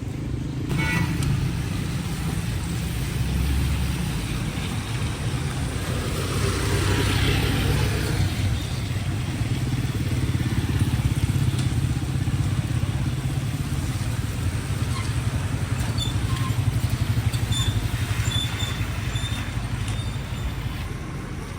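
Street traffic: vehicle engines running nearby, with a motorcycle-like steady rumble and a louder pass swelling about seven seconds in.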